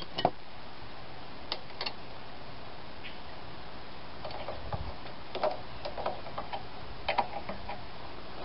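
Irregular small metal clicks and taps of a wrench working a fitting on the carburetor of a Tecumseh mower engine as it is tightened, with a dull bump about halfway through.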